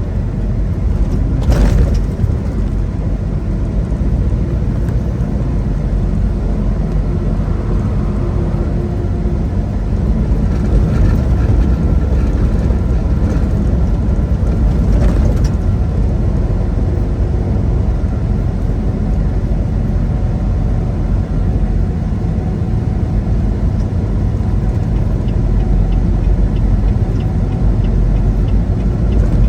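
Semi truck running at highway speed, a steady low rumble of engine and road noise heard inside the cab, with a brief sharp knock about two seconds in.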